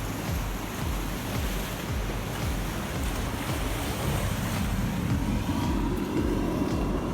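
Sea surf washing onto the shore, with wind buffeting the microphone.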